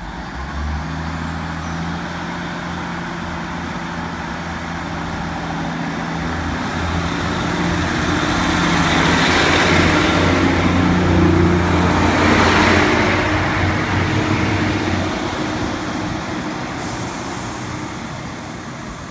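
Class 150 Sprinter diesel multiple unit pulling away from the station: its Cummins underfloor diesel engines open up sharply just after the start and run steadily under power. The sound grows louder as the cars pass close by, with wheel and rail noise peaking about 9 to 13 seconds in, then fades as the train draws away.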